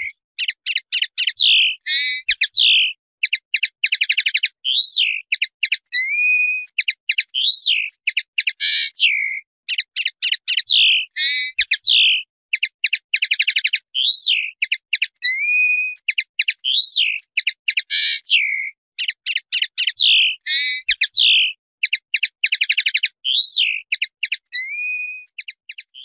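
A canary singing: phrases of fast trills and swooping whistles, one after another with short pauses between.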